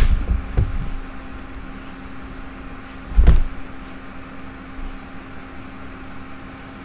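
Room tone with a steady low hum, broken by a sharp knock at the start, a lighter one just after, and a dull low thump about three seconds in.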